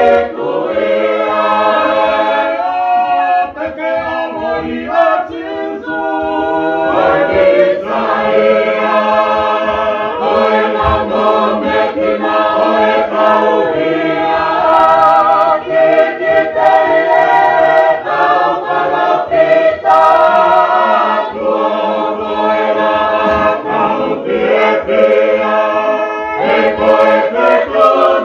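A Tongan church choir singing a hymn unaccompanied, several voices in harmony, with long held chords.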